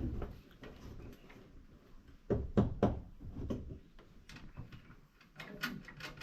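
Knocks and clicks of tools being worked on battery terminal connections: three sharp knocks a little over two seconds in, then a quick run of lighter clicks near the end.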